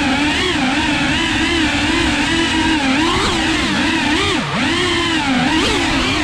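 FPV drone's motors whining, the pitch wavering up and down constantly with the throttle, with one deep dip about four and a half seconds in.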